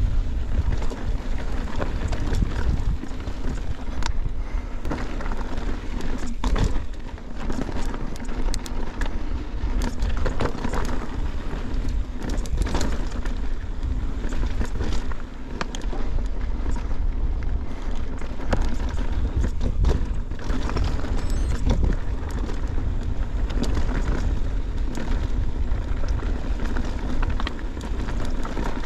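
Mountain bike rolling over a rough, rocky dirt trail: a steady low rumble of wind and trail noise on the action camera's microphone, with frequent clicks and rattles from the bike and stones under the tyres.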